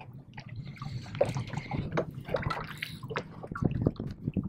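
Water sloshing and splashing against the side of a small fishing boat, with scattered knocks and clicks throughout.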